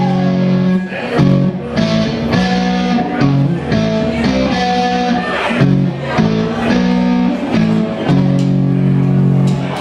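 Live rock band playing: an electric guitar plays a riff of repeated chords broken by short gaps, over bass guitar.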